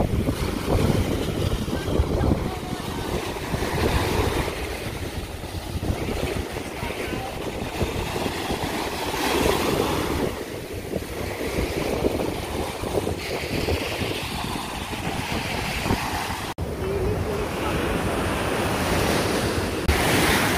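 Small sea waves breaking and washing up over sand, the surf swelling and easing in repeated surges, with wind on the microphone. The sound drops out for an instant about three-quarters of the way through.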